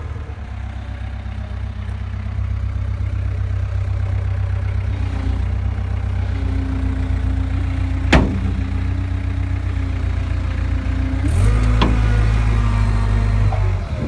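Diesel engine of a 2004 Caterpillar 257 rubber-track skid steer loader running steadily, with a sharp knock about eight seconds in. About eleven seconds in the engine gets louder, as under load, then drops back just before the end.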